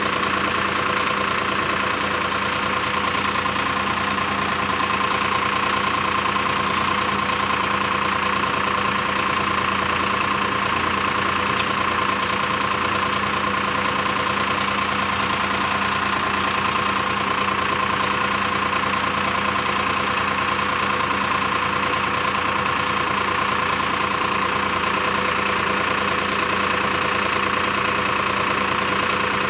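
Bull backhoe loader's diesel engine idling steadily, holding an even pitch throughout.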